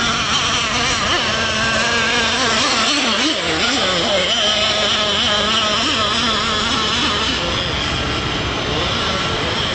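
Nitro outboard engine of a radio-controlled boat running at high revs under throttle, its buzzing whine wavering up and down in pitch.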